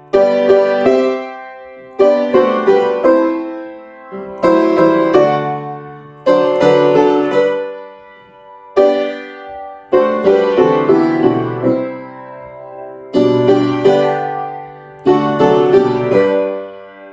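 Piano playing a hymn tune in full chords, phrase by phrase; each chord is struck and left to ring and fade before the next group of notes.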